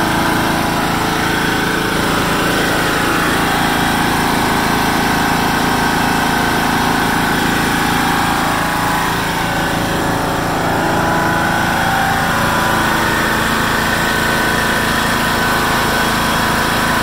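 Kawasaki FC420V single-cylinder engine of a 1996 John Deere LX176 lawn tractor running steadily, not surging or sputtering, though it had sat for years on old gas without its carburettor cleaned.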